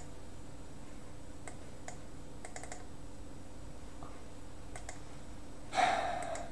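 Scattered light clicks of a computer mouse and keyboard, a few in quick succession about two and a half seconds in, over a faint steady hum. Near the end comes a short, louder rush of breathy noise.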